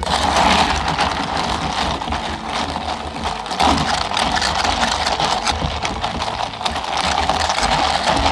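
A long bar spoon stirring iced, carbonated grapefruit ade in a lidded plastic cup: a steady stream of ice rattling and clicking against the cup, with the fizz of the sparkling drink.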